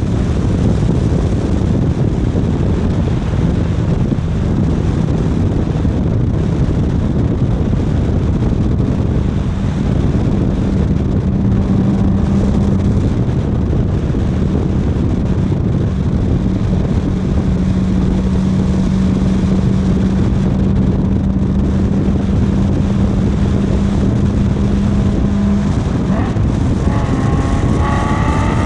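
A motor vehicle's engine running at a steady cruise with heavy wind and road rumble on the action-camera microphone, holding one steady drone. Near the end the engine pitch starts rising as it accelerates.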